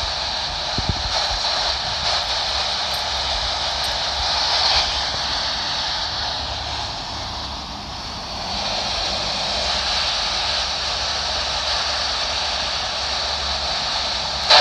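Uniden PRO401HH handheld CB radio on channel 23 giving a steady hiss of receiver static from its speaker, with no clear station coming through.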